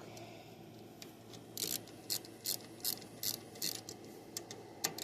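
Socket ratchet wrench being swung back and forth, a quick burst of pawl clicks on each return stroke, about two or three strokes a second starting about one and a half seconds in. It is tightening the mounting bolts as the mower's park brake module goes back on.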